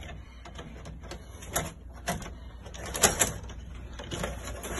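A few scattered light clicks and knocks, handling noise from hands and the phone moving about the wires and metal of an open breaker panel.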